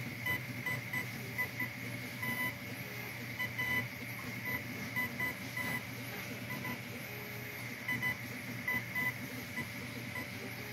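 Diode laser engraver raster-engraving: its stepper motors give short high beeping chirps several times a second in irregular runs as the head scans back and forth, over a steady low hum.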